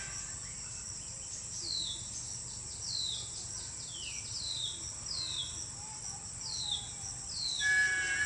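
A small bird's short whistled notes, each sweeping quickly downward, repeated about seven times at roughly one a second, over a steady high insect drone.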